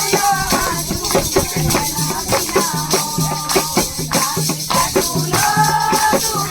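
Music with a steady, fast percussive beat under a sung or played melody.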